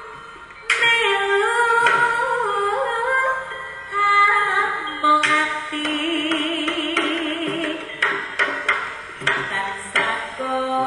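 Live jaranan accompaniment music: a singing voice carries a wavering melody over gamelan-style instruments. A held, wavering tone comes in about halfway through, and sharp drum strikes follow near the end.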